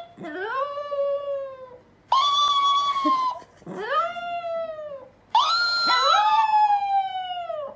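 Chihuahua howling: four long howls that slide up and down in pitch, with a second howling voice overlapping the last one.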